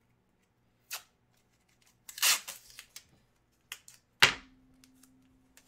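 Handling noises at close range: a click about a second in, a brief rustle around two seconds, then a couple of clicks and a sharp knock a little past four seconds, the loudest, with a short ringing tail.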